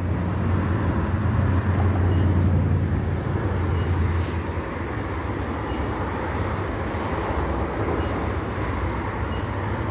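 Street traffic: a low engine drone, strongest in the first four seconds or so and easing after, over a steady hiss of road noise.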